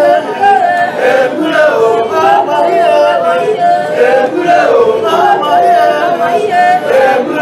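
A group of men and women singing together in chorus, several voices overlapping with held, wavering notes.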